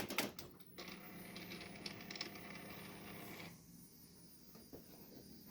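Keys clinking and clicking in the ignition, then the 2004 Nissan Xterra's electric fuel pump humming steadily for about three seconds and cutting off: the pump priming the fuel rail with the key switched on.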